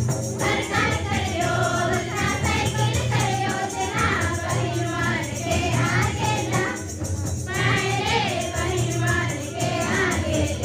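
A group of girls singing a folk song together in chorus, the singing going on without a break.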